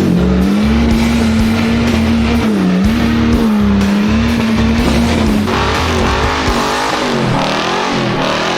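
Off-road 4x4 engine held at high revs, its pitch dipping briefly and then wavering up and down as the throttle is worked, with background music.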